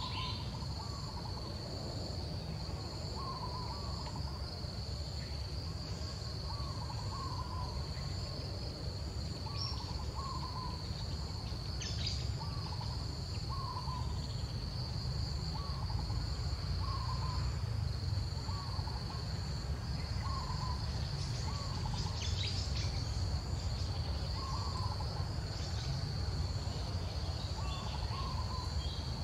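A steady, high-pitched insect chorus, typical of crickets, with a bird's short call repeating about once a second. A low rumble runs underneath.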